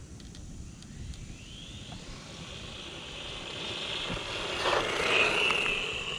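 Brushless electric motor of a Hosim Q903 1/16-scale 4x4 RC truck running flat out on a speed run: a high whine that comes in, grows steadily louder and peaks about five seconds in, then eases slightly.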